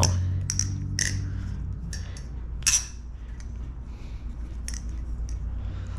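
Thomas Balisong Refault butterfly knife being flipped: its handles clack against each other and the blade's tang in irregular sharp metallic clicks. A steady low hum runs underneath.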